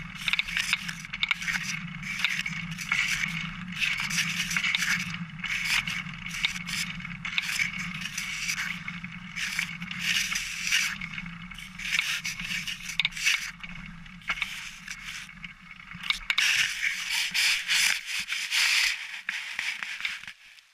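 Specialized single-speed bicycle's tyres rolling over a trail surface with steady scraping and crackling and a rattle from the frame, picked up by a camera mounted on the top tube. The low rolling hum drops away near the end.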